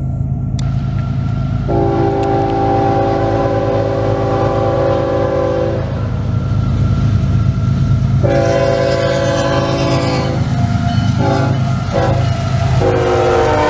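Approaching CSX freight train's locomotive horn sounding a multi-note chord: two long blasts, a short one, and a final long one near the end, the grade-crossing signal. Under the horn the diesel locomotives run with a steady low rumble.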